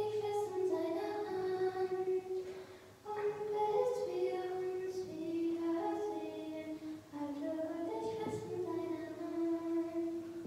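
A girl singing a slow melody in long held notes, pausing briefly about three seconds in.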